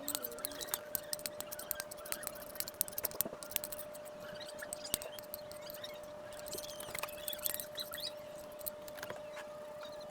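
Kitchen utensils handled around the cooking: quick light clicks and taps with some scraping, in two busy spells, over a faint steady hum.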